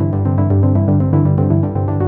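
Electronic background music: synthesizer notes in a quick, steady pattern over a sustained bass.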